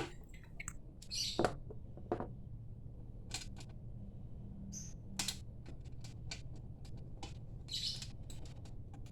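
Sparse light clicks and taps from handling the NVR's hard disk and its cable connectors, over a steady low hum. A few short, high chirps come about a second in, near the middle and near the end.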